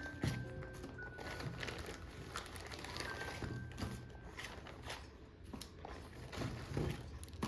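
Irregular light clicks and knocks of things being handled, over faint background music.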